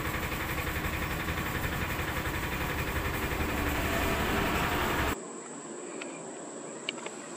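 Diesel engine of a Volvo FM 420 lorry running close by with a steady rumble, growing a little louder about four seconds in. It cuts off abruptly a little after five seconds, leaving a faint outdoor hush with a few small ticks.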